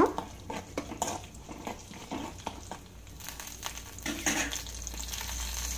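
Whole spices (fennel, cumin, peppercorns, cloves and cinnamon) frying in a little hot oil in an aluminium kadai, with scattered light crackles and a steel spoon scraping and clinking against the pan as they are stirred.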